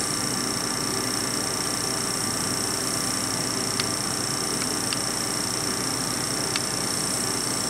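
Solder fume extractor's suction fan running steadily: a constant airy hiss with a faint high whine, and a few faint ticks.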